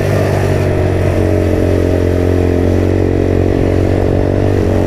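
Motrac M5 50cc moped engine running steadily under way, with a shift in the engine note right at the start.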